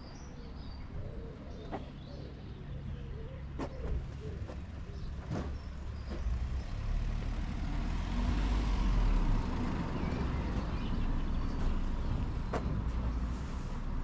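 A motor vehicle driving along the road, its low engine rumble building to a peak as it passes about eight to nine seconds in, then easing off. A few sharp clicks and faint bird chirps come in around it.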